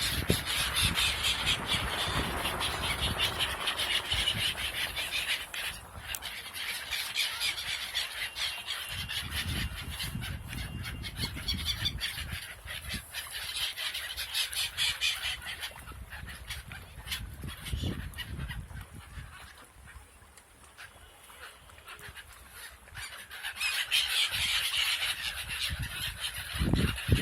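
Birds calling over and over, busiest at the start and again near the end, quieter about two-thirds of the way through, with low rumbling underneath.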